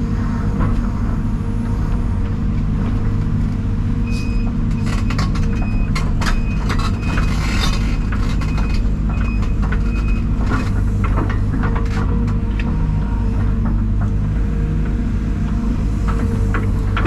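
Heavy diesel engine running steadily, with scattered clicks and rattles about halfway through.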